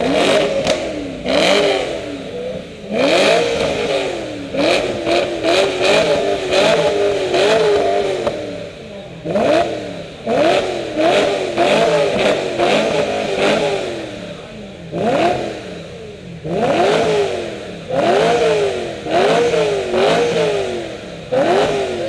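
The V8 exhaust of a BMW E9x-generation M3 revved in repeated short blips, roughly one a second, each rising sharply in pitch and falling back, with a couple of short pauses between runs of blips.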